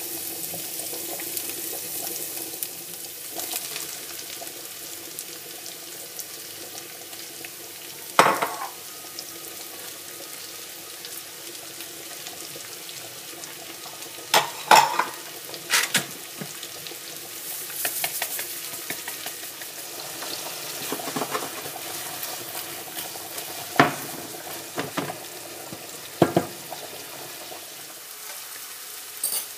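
Chopped red onion and sliced mushrooms frying in olive oil in a non-stick frying pan, with a steady sizzle. Several sharp knocks and scrapes of a utensil against the pan come as the food is stirred.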